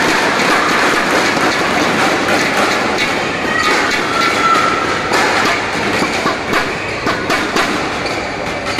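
Steady din of a badminton hall crowd chattering between rallies, with scattered sharp knocks in the second half.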